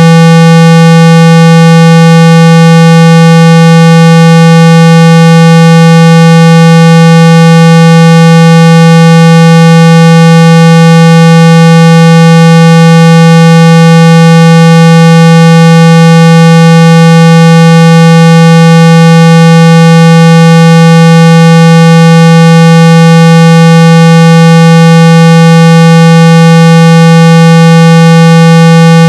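Steady 165 Hz test tone, very loud and unchanging, with fainter higher overtones above the low hum. It is a speaker-cleaning tone, played to shake water and dust out of a phone's speaker.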